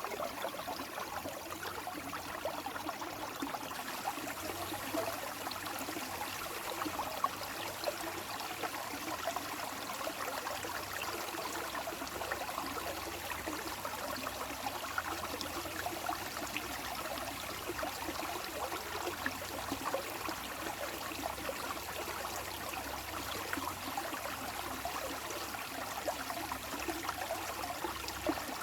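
Small stream of water running and trickling steadily over stones, with many small bubbling splashes.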